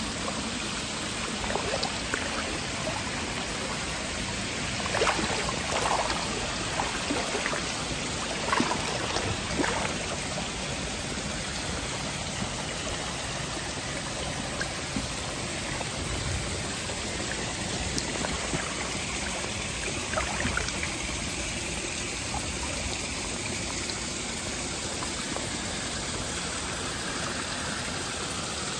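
Shallow stream running over a stony bed: a steady rush of flowing water. A few louder splashes stand out, clustered in the first ten seconds and once more about twenty seconds in, from steps wading through the knee-deep shallows.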